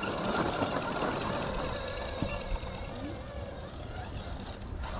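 Axial SCX10 Pro RC rock crawler's electric motor and geared drivetrain whining steadily as it climbs a rock slab.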